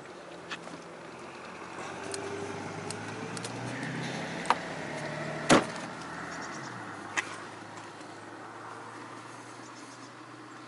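Mercedes-Benz W126 driver's door being opened from outside: a few light clicks from the handle, then the latch releasing with one sharp clunk about halfway through. A low hum swells under it for a few seconds and fades.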